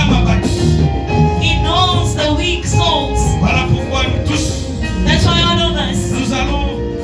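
Church worship music: held keyboard chords and a bass line with a voice singing or praying over them.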